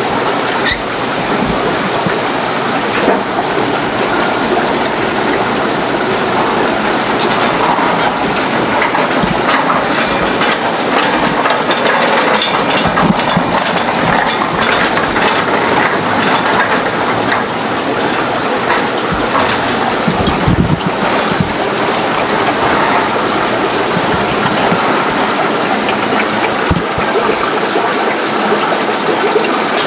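Aquarium filtration in a fish room: a steady rush of running and bubbling water from the tank filters and air-driven sponge filters.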